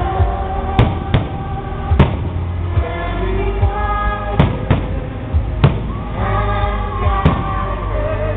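Fireworks shells bursting in the sky with about seven sharp bangs, irregularly spaced, over loud music with singing that plays throughout.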